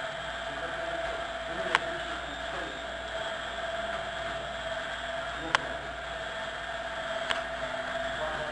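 Stainless-steel drum mixer turning with its inverter-controlled electric drive running, a steady whine over a noisy hiss as shredded vegetable salad tumbles inside the drum. Three sharp clicks come at irregular intervals.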